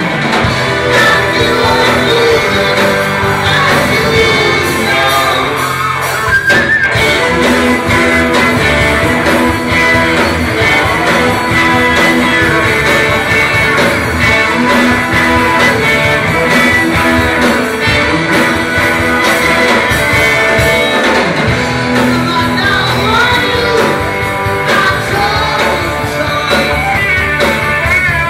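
Live rock band playing a song: electric guitar and violin with a lead vocal, heard from within the audience.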